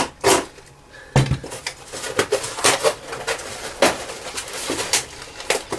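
Loose lathe parts clinking and knocking together as a box of them is unpacked: a run of short, sharp clicks and rattles, with a duller thump about a second in.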